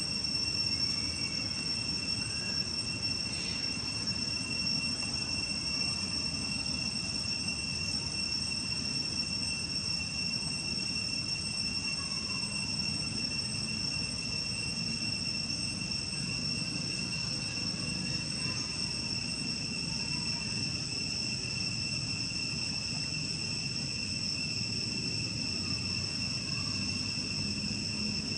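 Steady, high-pitched insect chorus that drones without a break, over a low background rumble.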